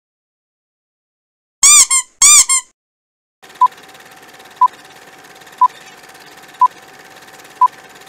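Old film-leader countdown sound effect. After a moment of silence come two short chirps that rise then fall in pitch, each with a quick echo. About three and a half seconds in, a steady projector-like hiss and hum starts, with a short beep once a second marking the countdown numbers.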